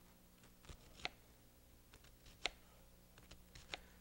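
Kitchen knife slicing a small onion into rings on a wooden cutting board: faint, sharp taps of the blade meeting the board at irregular intervals, the clearest about a second in and two and a half seconds in.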